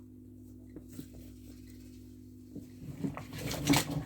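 Fidget toys clicking and rattling as a pile of them is rummaged through: a few faint clicks at first, getting busier and louder over the last second and a half. A steady low hum runs underneath.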